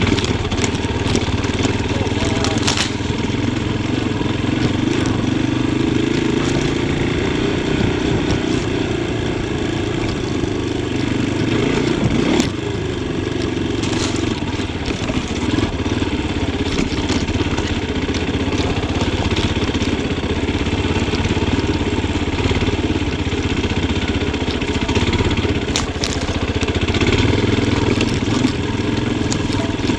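Yamaha Tricker XG250's single-cylinder four-stroke engine running at low to moderate revs, the throttle opening and closing, with a few sharp knocks scattered through.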